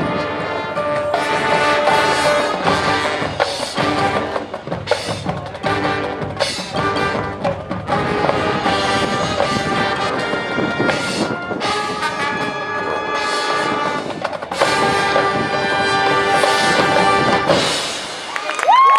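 Marching band playing: brass winds over drumline strikes with full chords. Near the end the sound drops briefly, then a loud held brass chord begins.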